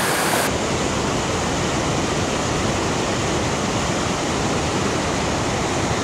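Steady rushing of water pouring over a low river dam spillway into rapids.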